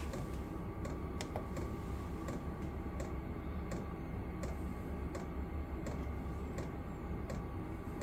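Vevor diesel air heater running on its low H1 setting: a steady low rumble from its fan and burner, under a regular sharp click about every 0.7 s from its fuel dosing pump.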